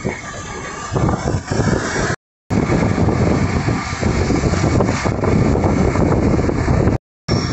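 Old wooden-bodied electric tram running along its street tracks: a steady, loud running rumble of the car and its wheels on the rails. The sound drops out briefly about two seconds in.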